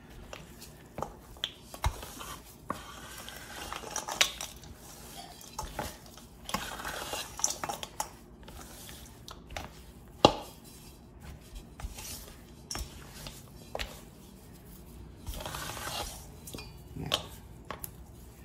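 Wooden spatula scraping and knocking against a stainless steel mixing bowl while folding thick cookie dough studded with chopped white chocolate. The scrapes and clunks are irregular, and the loudest knock comes about ten seconds in.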